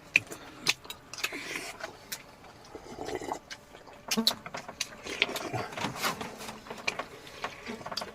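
Eating sounds at close range: an irregular run of sharp clicks and smacks from chewing and from dishes and utensils being handled.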